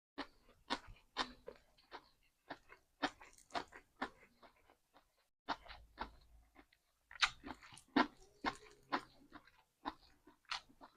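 A person chewing food close to the microphone: an irregular run of sharp, clicky chews and bites with a short pause about five and a half seconds in.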